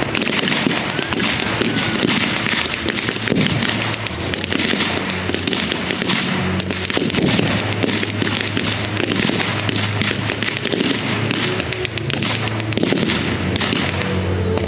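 Rapid, continuous crackling and popping of battle-reenactment pyrotechnics, with steady background music underneath.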